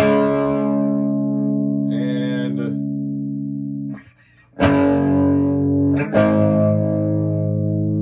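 Electric guitar chords through a Sunn 200S tube amp with an added 12AX7 preamp stage (four gain stages), mildly overdriven. One chord rings for about four seconds, then after a short gap two more chords are struck and held. There is a faint phasing sound that the player puts down to mild blocking distortion.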